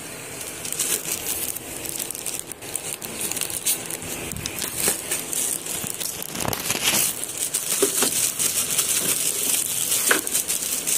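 Clear zip-lock plastic bag crinkling as it is handled, an irregular run of crackles with a few louder rustles.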